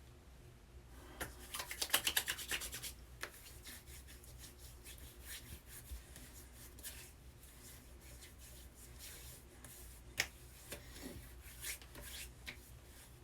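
Hands rubbing post-shave balm into freshly shaved skin, close to the microphone: a quick run of rubbing strokes about two seconds in, then softer, scattered rubs.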